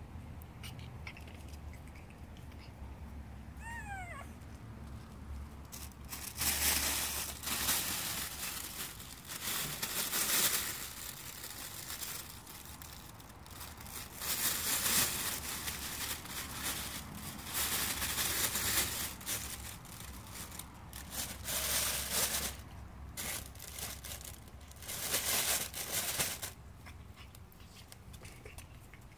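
Nylon pop-up play tunnel crinkling and rustling in repeated bursts as a Boston terrier puppy scrambles in and around it. Early on there is a single short rising squeak from a puppy.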